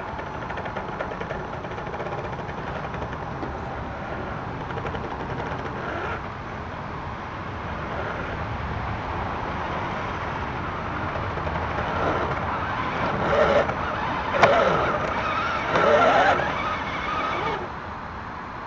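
Electric motor and gear drive of a radio-controlled scale crawler truck whining as it works on a muddy bank. In the last few seconds it rises in several revving bursts that glide up and down in pitch, with one sharp click among them.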